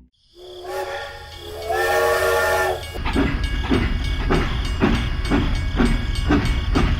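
Steam train whistle blowing two chord-like blasts, then the locomotive starts a steady rhythmic chuffing, a little over two chuffs a second, over a low rumble.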